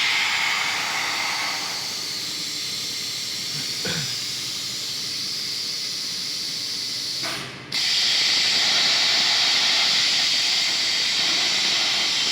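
CNC plasma torch cutting thin sheet steel with a steady, loud hiss. The hiss drops out for a moment about seven and a half seconds in, then resumes louder.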